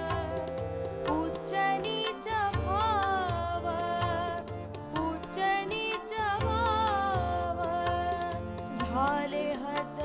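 Indian devotional song music: a gliding, ornamented melody over a steady pattern of low drum strokes.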